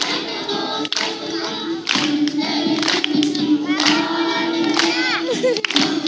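A large group of schoolchildren singing a song together in unison, holding a steady tune, with hand claps at roughly even intervals.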